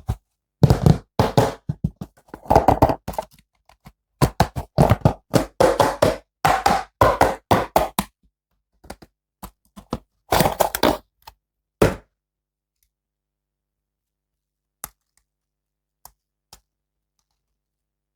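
Rapid runs of sharp clicks and knocks from an action figure and its plastic packaging being handled, for about twelve seconds, then three single clicks near the end.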